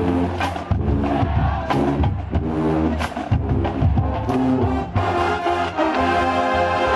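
College marching band playing a stand tune: drum hits under short brass riffs, with the horns swelling into fuller held chords near the end.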